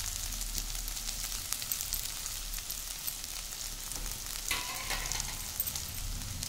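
Boiled, mashed potatoes with onion and green chilli frying in hot mustard oil in a nonstick pan: a steady sizzle with fine crackles.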